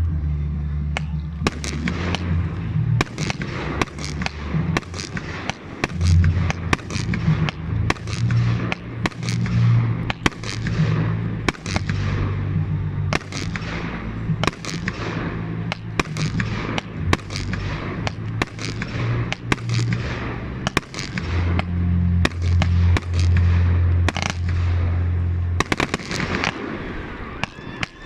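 Fireworks going off in quick succession, a steady stream of sharp bangs and cracks, each trailing off, over a deep rumble.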